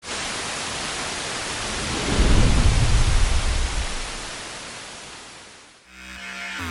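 Thunder and rain: a steady rain hiss, with a loud rumble of thunder about two seconds in that slowly dies away. A sustained synth tone comes in near the end.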